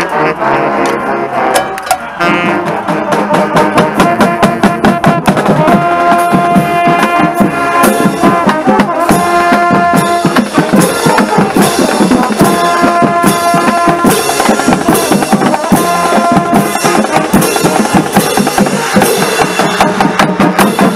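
High school marching band playing: the drumline's bass drums, tenor drums and crash cymbals beat a fast, steady rhythm, with the cymbals right at the microphone. From about six seconds in, the horns play held notes over the drums in repeated phrases.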